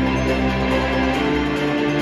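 Music with long held notes and chords, with no singing and no drum hits.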